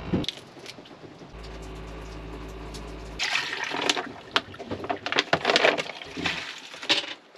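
A low steady hum, which fits a tankless water heater running on to cool itself after the water is shut off, gives way about three seconds in to water running and splashing in uneven gushes.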